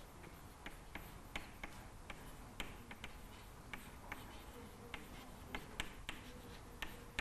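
Chalk writing on a blackboard: a string of faint, irregular taps and clicks as each symbol is written.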